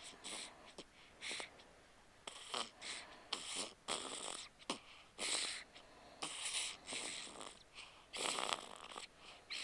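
An 8-day-old newborn snoring in sleep. The breaths are short and snuffly, coming about once a second.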